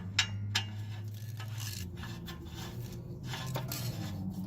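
Used oxygen sensor being screwed by hand into the exhaust pipe's threaded sensor bung: metallic scraping and rubbing with a few sharp clicks, over a low steady hum that fades about two seconds in.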